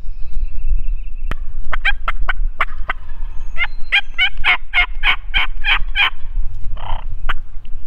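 Wild turkey calling: a long run of quick, sharp notes, about five a second for some four seconds, then one short call near the end.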